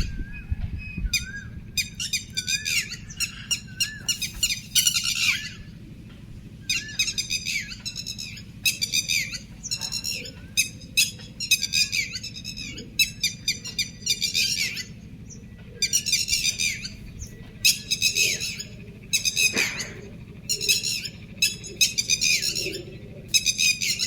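Birds calling: short, harsh squawking calls repeated in quick bouts, with a warbling whistle in the first few seconds, over a steady low hum.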